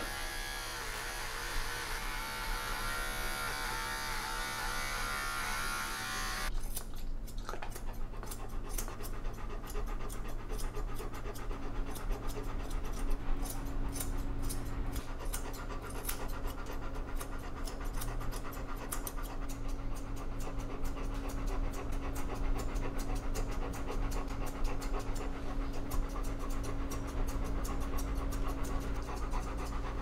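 Electric pet clipper running with a steady buzz as it trims around a large dog's paw; about six seconds in it stops and grooming scissors take over, snipping the paw fur in quick clicks while the dog pants.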